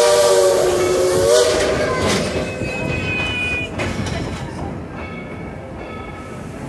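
Dollywood Express steam locomotive's whistle sounding one chord for about a second and a half at the start, then the steady rumble and clatter of the narrow-gauge train rolling along the track, with a few brief high squeals.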